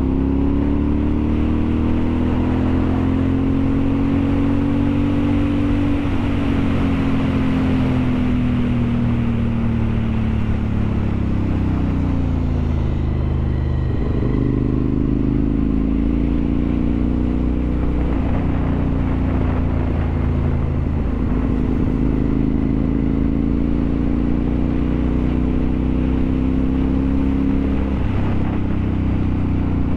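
Road vehicle engine running on the move, its pitch slowly rising and falling several times as the speed changes, with a dip around the middle, over constant wind and road noise.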